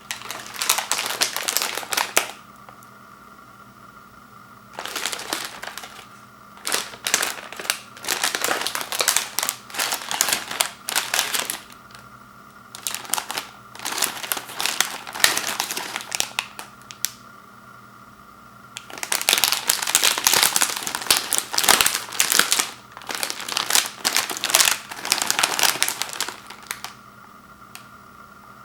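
Crinkling plastic wrapper of a package of Oreo cookies being handled and pulled open, in irregular bursts with short pauses between, over a faint steady hum.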